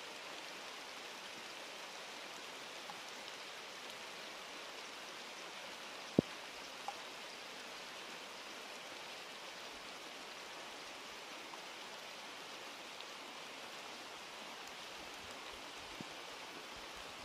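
Steady hiss of rain falling, with one sharp tap about six seconds in and a fainter one shortly after.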